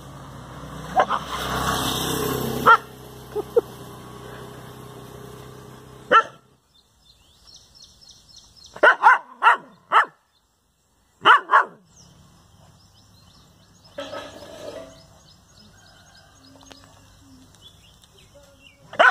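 A dog barking in short sharp bursts at its mirror reflection: one bark about six seconds in, three quick barks around nine seconds, then two more. A rushing noise fills the first few seconds.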